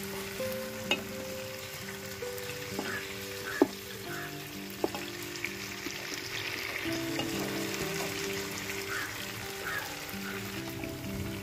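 Chicken pieces sizzling as they fry in masala and ghee in a pot, while a spatula stirs and turns them, with a few sharp taps of the spatula against the pot. Background music plays underneath.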